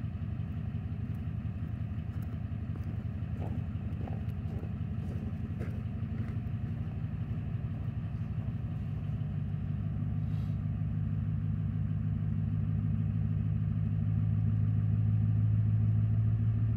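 7.3 PowerStroke turbodiesel V8 with a Holset HX50 turbo and dual 5-inch exhaust idling steadily with a rapid diesel clatter, growing gradually louder over the second half.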